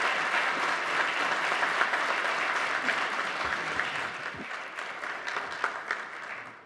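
Audience applauding, with dense clapping that tapers off over the last few seconds.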